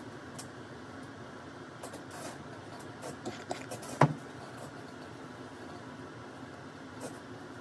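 Steady low hum of room noise, with a few small clicks and one sharp tap about four seconds in.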